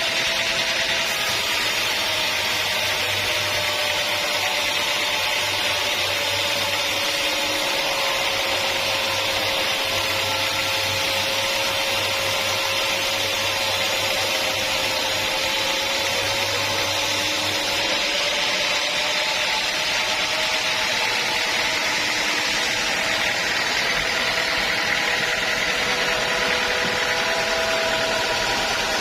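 Sawmill saw running through a teak log: a steady mechanical noise with a running tone that sags slowly through the middle and climbs back near the end.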